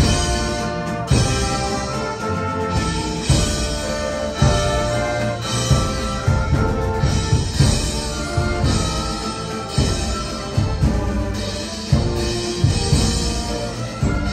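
A live orchestra playing, with strings and brass holding notes and heavy drum strokes landing every second or two.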